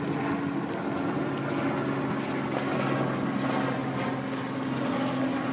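A boat engine running steadily with an even low hum, over a background of wind and water noise.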